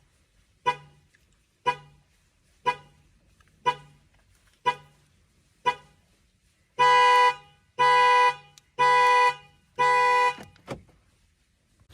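Car alarm sounding through a car horn: six short toots about a second apart, then four longer honks at the same pace, and a last short toot near the end.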